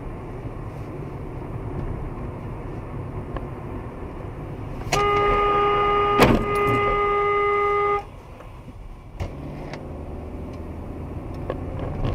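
A car horn held for about three seconds, one steady blast, over the road and engine noise of a car driving. A sharp click comes partway through the horn.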